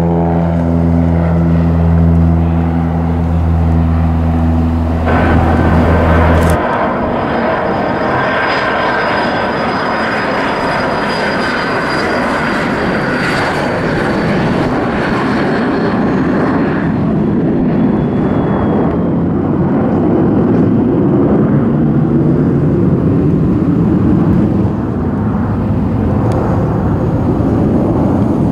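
Airplane engine noise. It starts as a steady low drone made of several tones, and after about six seconds gives way to a broad rushing roar with a faint high whine that slowly drops in pitch.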